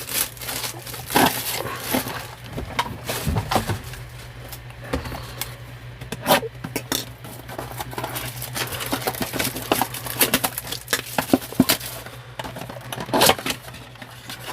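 Cardboard blaster boxes and foil trading-card packs being handled and unpacked: irregular scraping, crinkling and light knocks over a steady low hum.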